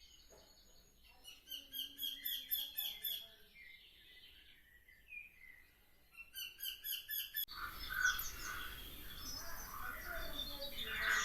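Songbirds calling in quick runs of repeated high chirps, about five notes a second, with other bird calls in between; about two-thirds of the way through the background turns abruptly noisier, with more calls over it.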